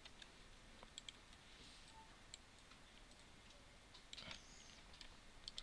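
Near silence with a few faint, scattered clicks of a computer mouse and keyboard over quiet room hiss.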